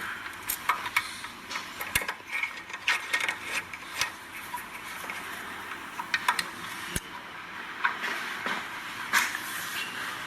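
Irregular small metallic clicks and scrapes of the motor screws being put back into a Piranha dive scooter and done up loosely with a hand tool.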